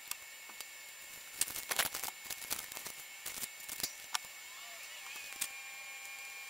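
A cluster of sharp clicks and light clatter as thin cut-out scroll pieces are set down and shifted on a clear acrylic panel, with a few scattered taps after it, over a faint steady hiss.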